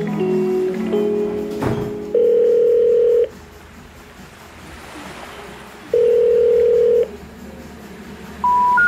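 Telephone tones inside a music track: after a few held notes, a ringback tone sounds twice, each about a second long with over two seconds between. Near the end come three short rising tones, the special information tone that comes before a 'number not in service' message.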